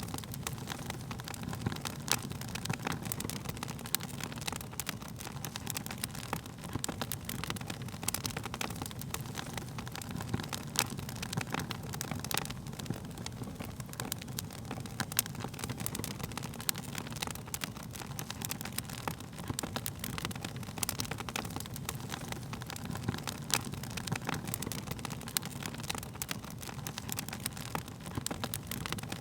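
Burning wood fire crackling, with frequent sharp pops and snaps over a steady low rush of flame.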